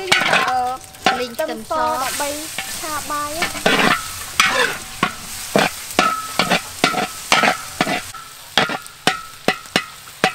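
Metal spatula scraping and knocking against a large iron wok while chopped ingredients sizzle in hot oil. In the first few seconds the scraping squeals in shifting tones, then it settles into regular strokes about two a second.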